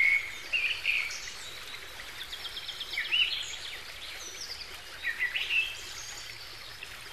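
Small birds chirping and trilling in short calls, some as quick rising whistles, over a steady background hiss.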